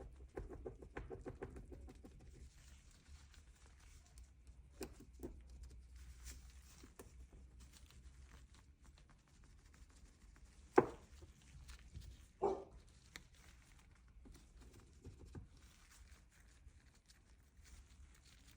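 Faint clicking and tapping of the freed pistons and small metal parts of an outboard's high-pressure fuel pump being worked by hand, with two louder sharp knocks a second and a half apart near the middle. The pistons now move freely after being unstuck from corrosion.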